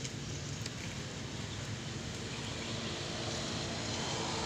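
Steady hum of a motor vehicle engine in the background, growing a little louder near the end, over an even hiss of outdoor noise.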